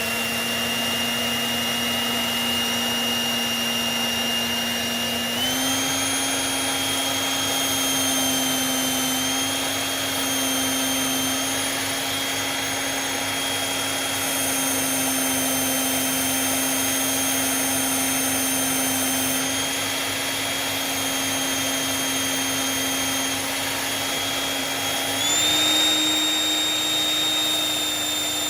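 Electric knife sharpener's motor running steadily with a whine, stepping up in pitch about five seconds in and again near the end, while a blade is honed on its fine, strop-like stage.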